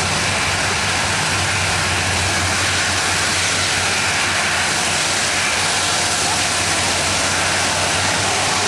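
Boeing 747-400 freighter's four jet engines running at taxi power as the aircraft moves slowly along the ground: a steady, even rush of engine noise with a low hum beneath it.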